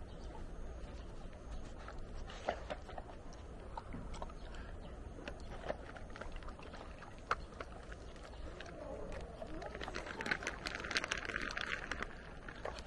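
Dogs taking jerky treats from a hand and chewing, heard as scattered small clicks and mouth sounds, with a denser crinkly stretch near the end as the plastic treat bag is handled.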